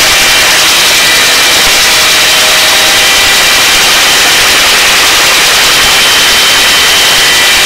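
Hovering helicopter's turbine engine and rotor, loud and steady, with a high whine running over the roar.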